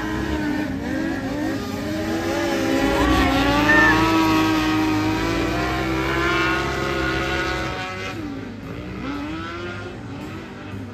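Piaggio Ape three-wheelers drifting on a dirt track, their small engines revving up and down. Loudest about four seconds in, then fading after about eight seconds as they move away.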